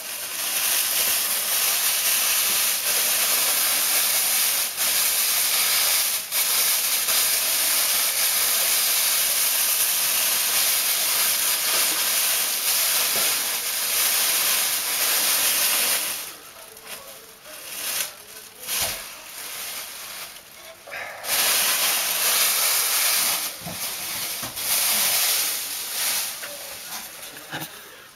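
Plastic packaging rustling and crinkling close to the microphone as a subwoofer is unwrapped. A long stretch of dense hissing rustle, a pause of a few seconds, then a second shorter burst of rustling.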